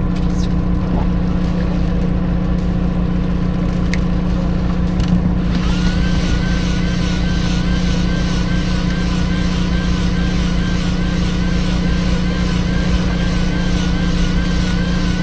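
Fishing boat's engine running steadily with a constant low hum. About five and a half seconds in, a high whine with a regular wobble in pitch, about twice a second, joins it and holds.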